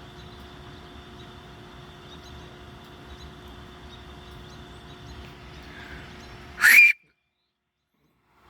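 Faint, scattered chirps of starlings over a steady background hum and outdoor noise. Near the end a brief loud burst of sound, then the sound cuts out to total silence.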